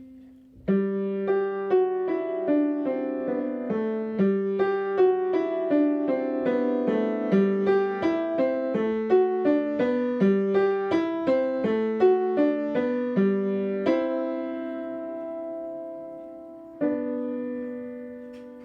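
Piano playing a short beginner's piece with the sustain pedal down, so each note rings on into the next. A steady run of notes lasts about thirteen seconds, then a held chord fades, and a final chord is struck near the end and left to ring.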